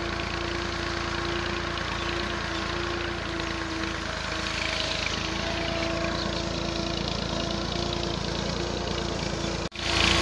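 Farm tractor's diesel engine running steadily while it pulls a hitched implement across a field, with a brief break near the end.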